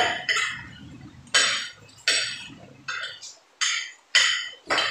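Metal forks and spoons clinking and scraping against plates while eating spaghetti, about seven sharp clinks in quick succession.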